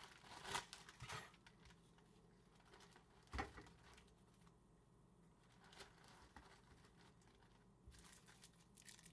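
A bag crinkling in brief, separate rustles as crackers are packed into it, faint against near silence.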